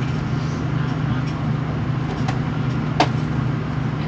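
Inside a V/Line VLocity diesel railcar running along the line: a steady low drone of engine and wheels on rail, with one sharp click about three seconds in.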